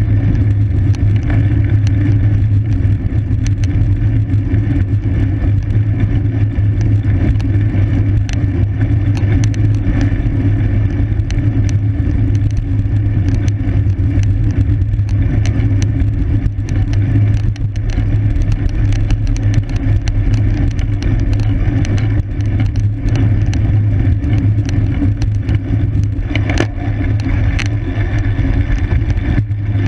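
Wind buffeting the microphone of a camera on a racing bicycle at speed: a steady, loud low rumble, with frequent small ticks and knocks from the bike and road.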